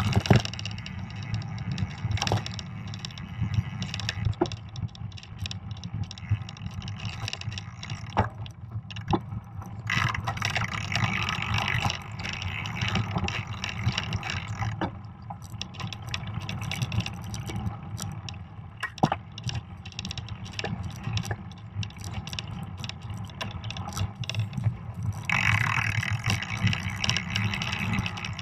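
Fat bike riding over a snowy trail: a steady low rumble of tyres and wind, with scattered knocks and rattles as the bike hits bumps. The hiss grows louder for a few seconds about ten seconds in and again near the end.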